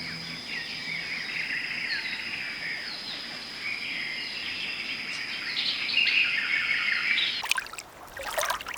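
Many small birds chirping and twittering together, over a steady high-pitched tone. A quick run of sharp clicks and splashy noise comes near the end.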